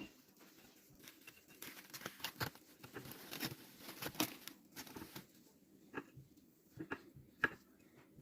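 Soft crinkling and crackling, a dense run of small clicks through the middle, then a few separate ticks near the end.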